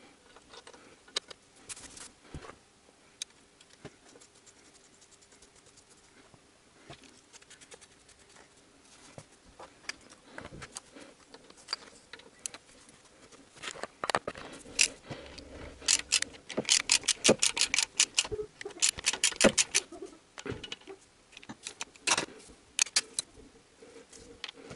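Ratchet wrench clicking in quick runs as it turns the connecting-rod cap nuts, with scattered light metal taps and clinks. The clicking is sparse and faint at first, then comes in dense loud runs from about halfway through, with one more short run near the end.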